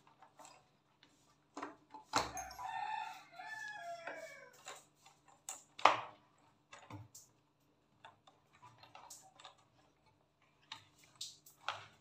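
Scattered clicks and knocks of an Ariston electric water heater's heating element and flange fittings being worked loose and pulled from the tank, with one sharp knock near the middle louder than the rest. A rooster crows in the background about two seconds in, its call falling in pitch at the end.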